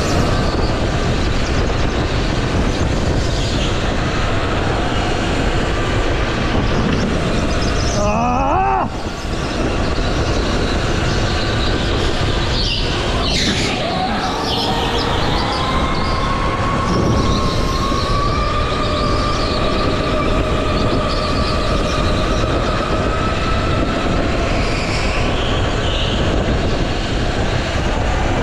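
A go-kart driven at racing speed, heard from the driver's seat: a loud, steady rumble with a wavering whine. About eight seconds in, the sound briefly drops and the whine climbs back up in pitch as the kart speeds up again.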